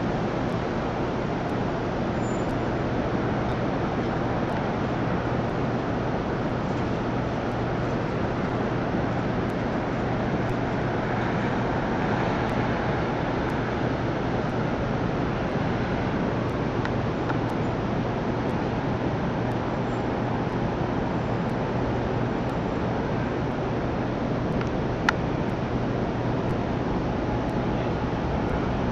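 Steady city traffic noise, an even wash of sound with no single vehicle standing out, over a constant low hum. One sharp click sounds near the end.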